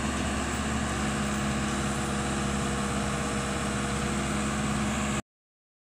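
Excavator's diesel engine running steadily with an even hum, which cuts off abruptly about five seconds in.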